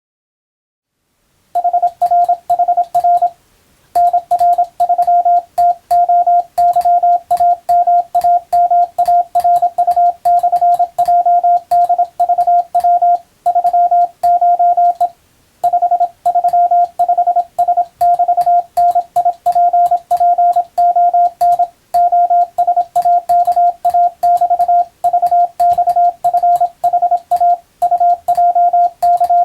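Morse code sent as a single steady tone keyed rapidly on and off in dots and dashes for receiving practice. It starts about a second and a half in, with short pauses between groups.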